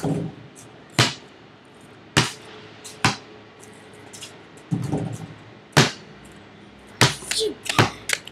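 Basketball bouncing on pavement: a series of sharp single slaps at irregular intervals, about six in all, with a duller thud near the middle.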